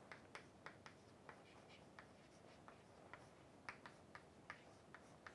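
Chalk tapping and scraping on a blackboard as words are written: a faint, irregular run of short ticks.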